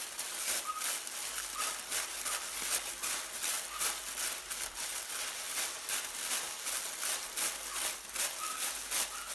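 Tissue paper rustling and crinkling as hands pull apart and fluff its thin layers, a dense run of soft crackles.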